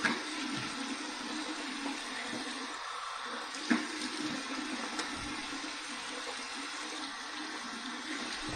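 Water running steadily from a bathroom sink tap during a face rinse, with a sharper splash at the start and another about four seconds in.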